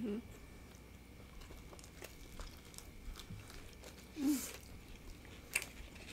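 Close eating sounds: soft chewing with small wet clicks, and a louder bite into a flour-tortilla taco about four seconds in.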